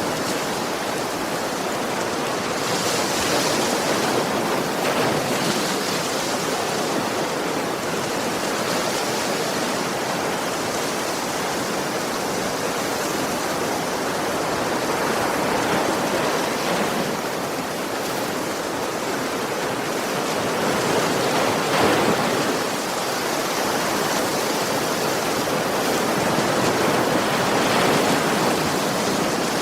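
Sea waves breaking gently on a shore: a continuous wash of surf that swells and eases every several seconds.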